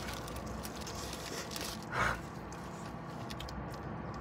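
Quiet chewing of a mouthful of burrito, with small wet mouth clicks and a short breathy sound about two seconds in, over a low steady hum.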